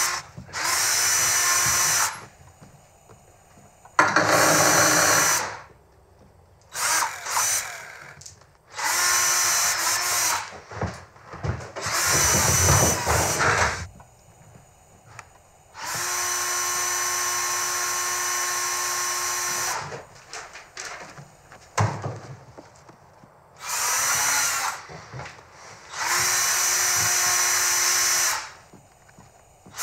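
Cordless, battery-powered drill running in about eight separate bursts of one to four seconds each, with short pauses and a few clicks between them, as it drills or drives screws into a wooden door frame.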